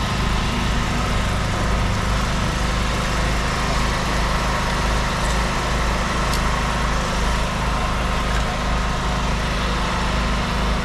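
A motor running at a steady speed, a low even drone that does not change, over constant background hiss. There is a faint click about six seconds in.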